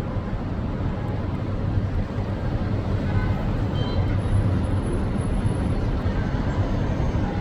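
Steady low rumble of outdoor street and traffic noise.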